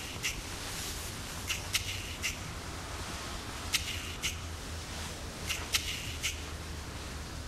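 Short, sharp high chirps, mostly in pairs about half a second apart, recurring every two seconds or so over a low steady hum.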